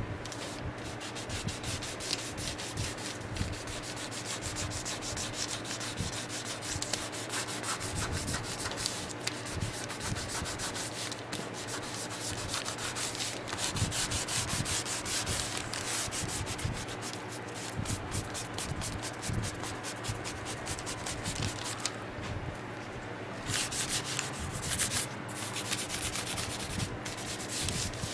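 Small applicator rubbing along a tooled leather belt in quick back-and-forth strokes as colour is worked into the leather, with a short lull a little past three quarters of the way.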